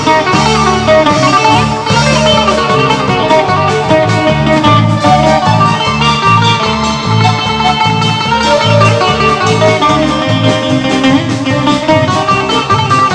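Bouzouki picking a melody of quick plucked notes over a rhythmic bass accompaniment.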